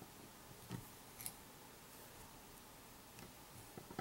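A few faint, sharp snips and clicks of small fly-tying scissors trimming material at the fly's head, over quiet room tone.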